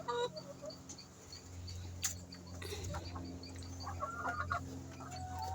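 Laying hens clucking, with short calls at the start, around four seconds in and near the end, over a steady low hum.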